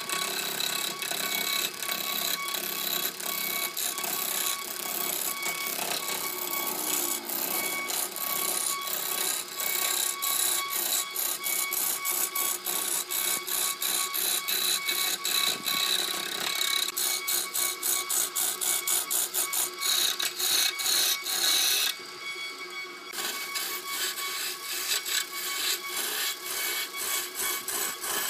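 A turning tool cutting into a log spinning on a wood lathe, a fast stream of chattering ticks as the edge bites the wood. The cutting stops briefly about 22 seconds in, then starts again.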